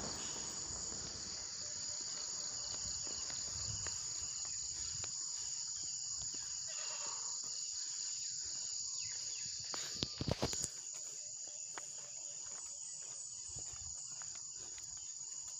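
Steady, high-pitched chorus of insects such as crickets, with a brief cluster of knocks about two-thirds of the way through.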